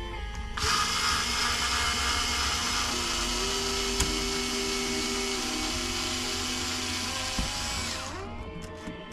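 Small handheld electric power tool running at high speed with a steady whine for about seven seconds, then winding down as it stops near the end.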